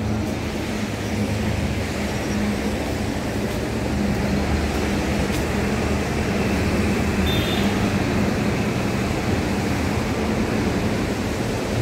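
A steady low mechanical hum from a running motor, under a constant rushing noise.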